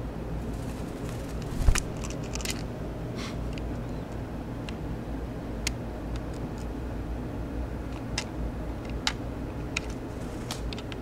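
A young northern mockingbird giving short, harsh clicking calls, about a dozen spread unevenly, over a steady low hum. One louder knock comes a little under two seconds in.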